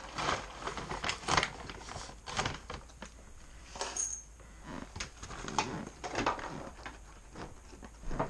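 Dog eating dry kibble from a stainless steel bowl: irregular clinks and rattles of kibble against the metal, with a brief metallic ring about four seconds in as more kibble is dropped in by hand.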